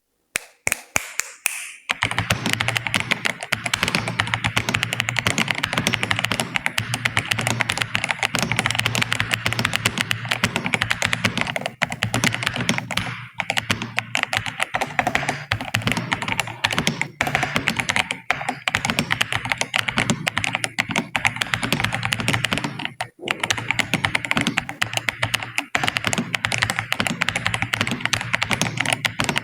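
Fast, continuous typing on a computer keyboard: a few separate keystrokes at first, then a dense run of key clicks at about 75 words per minute, with brief pauses twice along the way.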